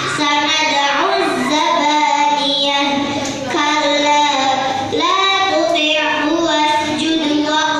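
A girl chanting a Qur'an recitation from memory in a melodic style, with long held notes that bend and glide. There are short pauses for breath about three seconds in and near five seconds.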